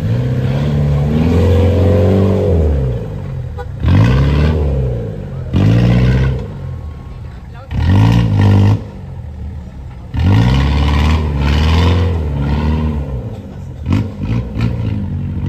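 Off-road 4x4 vehicle engine revved hard in repeated bursts, its pitch climbing and dropping with each, one burst held for about three seconds in the second half.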